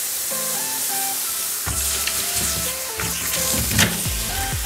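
Steady sizzling hiss of firecrackers burning against a red-hot knife, under upbeat electronic music whose bass beat comes in about two seconds in.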